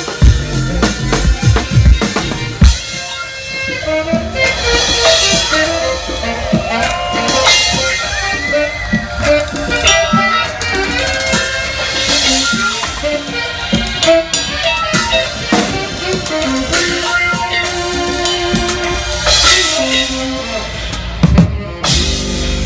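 Live band playing funky electronic music: an acoustic drum kit with kick and snare, hardest in the first few seconds, then a saxophone melody over keyboards and bass.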